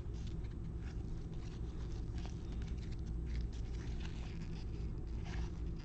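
Trading cards being flipped and slid through by hand: faint, irregular ticks and rustles of card stock, over a low steady hum.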